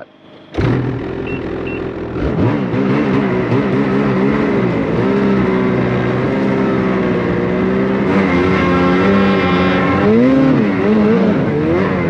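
Snowmobile engine running as the sled rides along a snowy trail, coming in abruptly about half a second in. Its pitch rises and falls with the throttle.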